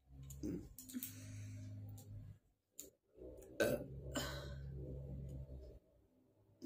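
A person belching twice, two long drawn-out burps of two seconds or more each, with a short pause between them. The burps come after gulping down a whole bottle of water in one go.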